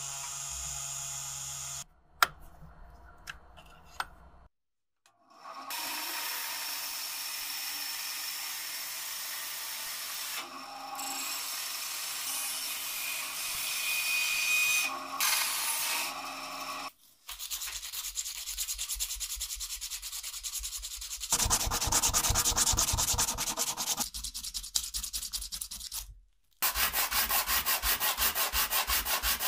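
Sandpaper rubbing on a new wooden cleaver handle, in several short edited clips: a steady scratching stretch, then quick, even back-and-forth strokes near the end.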